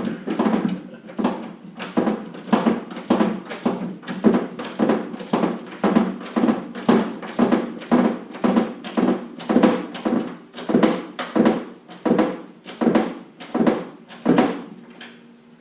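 A steady run of short knocks, about two a second, from hand-tool work on a steel snow-plow mount.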